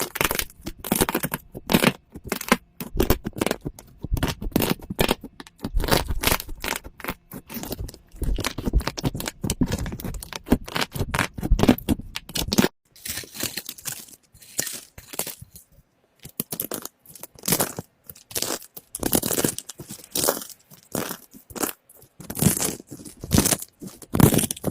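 Slime being squeezed and stretched by hand, a dense run of irregular crackles, clicks and pops. About halfway through the low, squishy part drops away and the crackles turn thinner and sharper.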